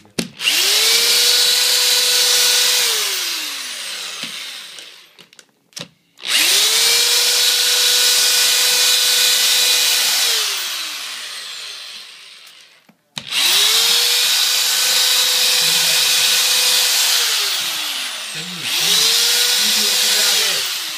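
Corded electric drill with its bit in a magazine's pages, run in three long bursts and a short one near the end. Each time it spins up quickly to a steady whine, holds for several seconds, then winds down slowly after the trigger is let go.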